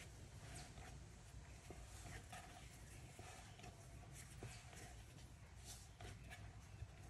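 Faint soft swishing and pressing of hands kneading bread dough on a floured wooden board, irregular strokes about once a second over a low steady hum.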